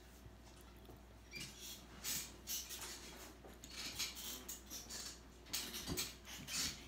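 Close-up eating sounds: a person chewing soft pasta in short, crackly bursts, with a metal fork clinking and scraping in a glass bowl.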